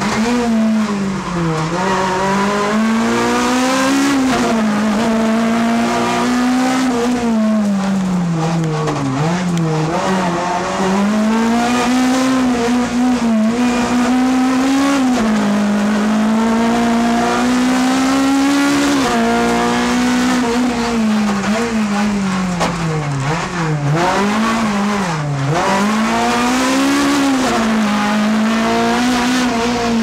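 Honda Civic EP3 race car's four-cylinder engine at racing pace, heard from inside the cabin. The engine note repeatedly climbs in pitch as it revs out and then drops at each gear change, with a few sharp falls where it comes off the throttle and shifts down.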